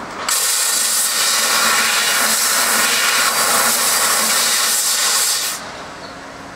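500 W fiber laser cutting machine cutting 1 mm stainless steel sheet: a loud, steady hiss of assist gas blowing through the cutting nozzle. It starts abruptly just after the beginning and cuts off abruptly about five and a half seconds in, leaving a quieter machine noise.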